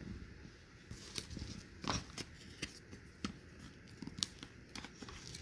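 Cardboard jigsaw puzzle pieces being handled and fitted together: faint, irregular light taps, clicks and scrapes of card.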